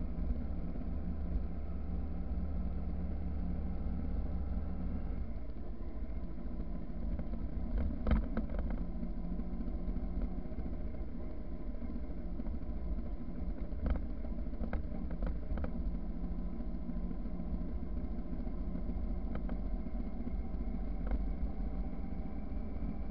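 Motorcycle engine running while riding a rutted dirt road, over a steady low road and wind rumble. The engine note changes about five seconds in. A few sharp knocks come from the bumps, the loudest about eight seconds in.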